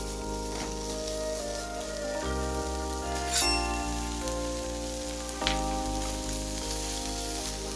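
Chicken strips and sliced onions sizzling in a nonstick frying pan, with two sharp clicks about three and a half and five and a half seconds in, under background music of sustained chords that change every second or two.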